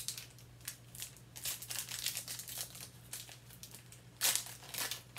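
The plastic wrapper of a 2016-17 Donruss basketball trading-card pack crinkling and tearing as it is opened by hand. It comes in irregular rustles, loudest about four seconds in.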